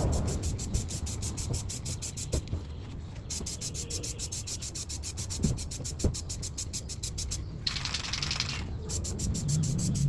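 Ironlak aerosol spray paint can hissing in one burst of about a second, near the end. Before it there is rubbing and handling noise with a few light knocks.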